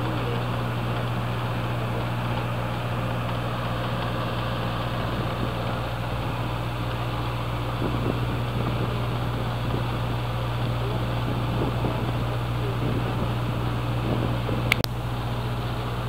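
Cruise boat's engine running steadily, a low, even hum with water and wind noise over it, heard from on deck. A single sharp click comes near the end.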